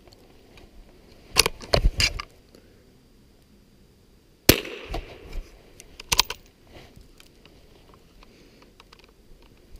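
One shot from a single-shot Mossberg .22 rifle firing .22 Short, a sharp, light crack with a brief echo about halfway through. Quick metallic clicks of the rifle's action being worked come before and after it as the shooter reloads.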